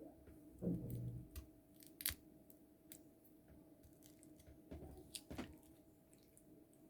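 Faint scattered clicks and light knocks, a cluster of dull knocks about a second in and a sharp click about two seconds in, over a steady low hum.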